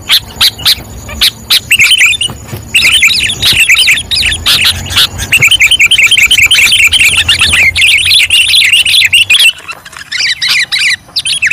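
Sooty-headed bulbul (kutilang) calling in a fast, almost unbroken run of high chirping notes, looser at the start and again near the end. It is the lively kutilang call that bird trappers seek as a lure. A low rumble runs under the calls until near the end.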